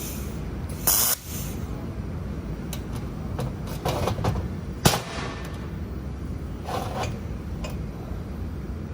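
Steady low hum of a 2 kW fiber laser welding setup, broken by a few short hissing, crackling bursts, the loudest about a second in, with a sharp click near five seconds.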